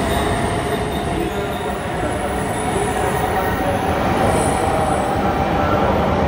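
A Tsubasa shinkansen train running slowly into the station toward the waiting Yamabiko train to be coupled, a steady rail noise growing slowly louder, with a faint high wheel squeal at times.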